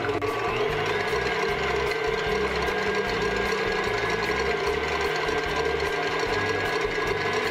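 KitchenAid stand mixer running steadily, its whisk beating egg whites into stiff peaks, with an even motor whir and a steady whine above it.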